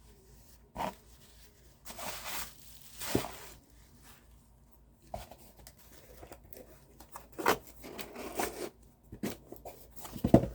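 Packaging crinkling and tearing in short, irregular rustles as it is handled, with louder bursts about a second in, around two to three seconds, and again later on.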